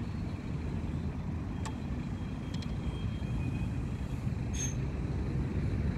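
Steady low rumble of outdoor background noise, with a few faint clicks and a short, sharper high tick about four and a half seconds in.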